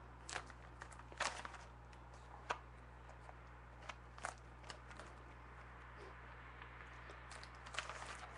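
A trading-card hobby box being handled: scattered crinkles, taps and clicks, the sharpest about a second in and again about two and a half seconds in, over a steady low hum.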